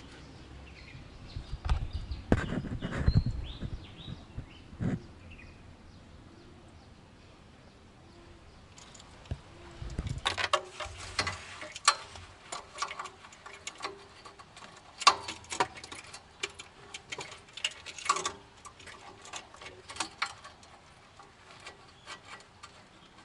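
Handling noise in an engine bay: a few dull thumps and rustles in the first few seconds, then many scattered clicks, knocks and scrapes as a rubber-gloved hand works down beside the engine.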